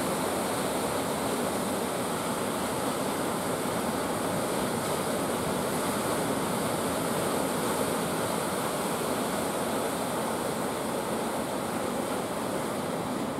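Sea surf: waves breaking and washing in, a steady rushing that barely varies.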